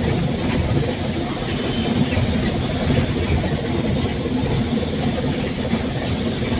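Steady engine and road rumble inside a town bus, heard from a passenger seat.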